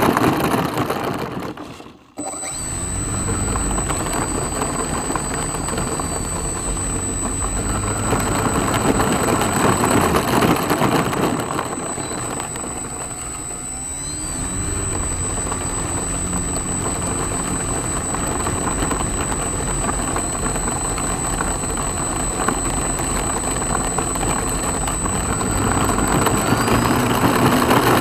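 The motor and propeller of a radio-controlled Yak-55 model airplane running on the ground, with a steady high whine over a low hum. The sound falls away almost to nothing about two seconds in, comes straight back, and builds again near the end.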